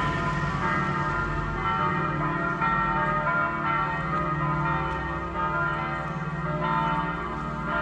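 Church bells pealing, several bells struck again and again, with their tones overlapping and ringing on.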